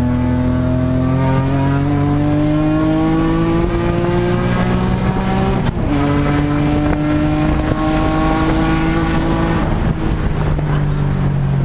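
BMW engine through a Bimmerworld race exhaust, accelerating hard: the exhaust note climbs steadily, drops at an upshift about six seconds in, climbs again, then falls and holds steady near the end as the driver eases off.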